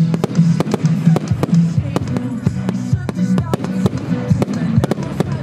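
Diamond "Revolution" consumer firework firing: a rapid run of sharp bangs and crackles. Music and voices run underneath.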